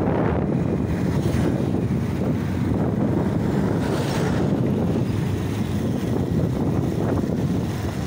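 Wind rushing over the microphone of a moving motorcycle, a steady low rumble, with a large vehicle passing close alongside about four seconds in.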